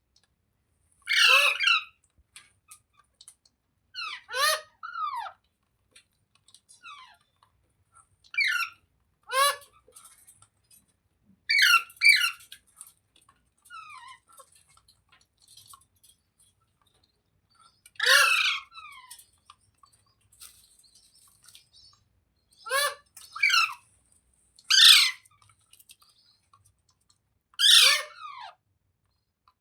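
Indian ringneck parakeet calling: repeated short, shrill calls that fall in pitch, in bursts of one or two with pauses of a few seconds between.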